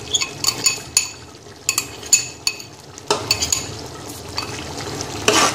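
A metal spoon scraping and tapping tomato ketchup out of a ceramic bowl into a metal cooking pot, giving repeated sharp clinks of metal on ceramic and metal.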